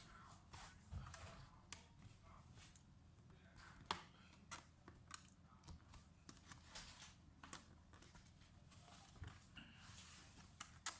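Faint, scattered clicks and taps of small parts and tools being handled while working on a laptop's insides for a RAM upgrade, over a low steady hum.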